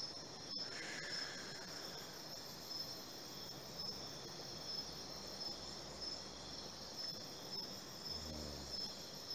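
Insects chirping in a steady chorus, a high trill pulsing at an even rate.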